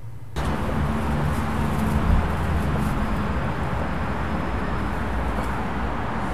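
Road traffic noise: a steady rumble and hum of vehicles going by at a roadside, starting abruptly about a third of a second in after a brief quiet room tone.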